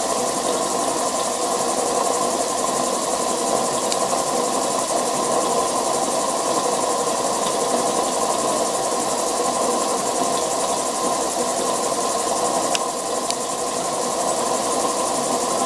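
Homemade model vertical steam engine with a spool valve running steadily on low steam pressure, about 3 pounds, together with the steady noise of the boiler's gas burner.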